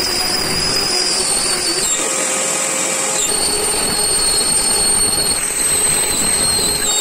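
CNC router spindle cutting into a board, mixed with the steady rush of a vacuum whose hose nozzle is held at the bit to pull away the chips. The high whine dips in pitch about two seconds in and comes back up a second later.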